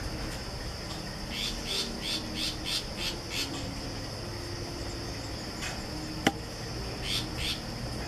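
A steady high insect drone. Over it a bird calls a quick series of about eight rough notes in the first half, then two more near the end. A single sharp click just after six seconds is the loudest sound.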